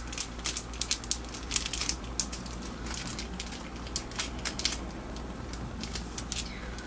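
Packaging being handled and opened: a run of irregular crinkling crackles and small clicks as an angled eyeliner brush is taken out of its wrapping.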